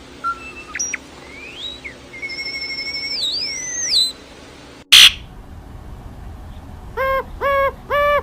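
Bird calls: clear whistled notes that glide up and down, two pitches at once crossing each other, then a sudden short click about five seconds in. Near the end a run of repeated hooting notes starts, about two a second.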